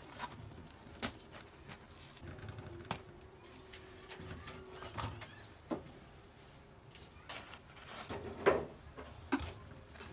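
Scattered light clicks and knocks over low room noise, with a faint steady hum for about two seconds near the start.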